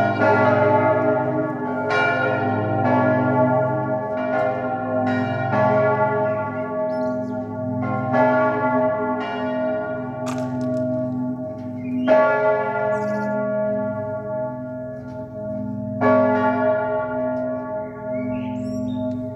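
Full peal of seven swinging church bells, six cast by Johann Hahn in 1947 and one from 1732, the heaviest tuned to A-flat, ringing together in overlapping, echoing strikes. The strikes come about a second apart at first and grow farther apart in the second half.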